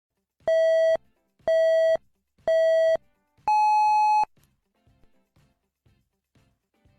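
Electronic beeps in a countdown pattern: three short beeps at one pitch, a second apart, then a longer, higher beep.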